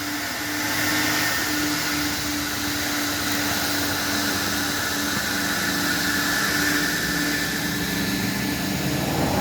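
Coin-operated car wash vacuum running steadily, a constant suction noise with a steady hum and a faint high whine.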